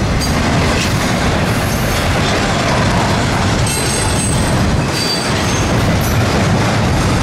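Double-stack intermodal well cars of a Norfolk Southern freight train rolling past: a steady rumble of steel wheels on rail, with short, faint high-pitched wheel squeals about four and five seconds in.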